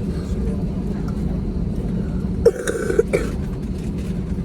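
Steady low hum of a jet airliner's cabin as the plane taxis. About two and a half seconds in, a person coughs briefly, twice.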